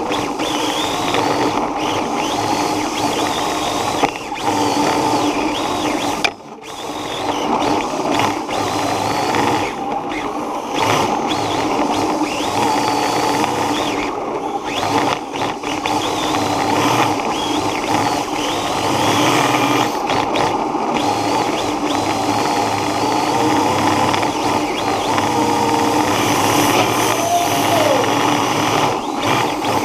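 Electric radio-controlled car running hard, its motor whining and gliding up and down in pitch with the throttle over a steady gear and drivetrain whir. The sound drops briefly about six seconds in.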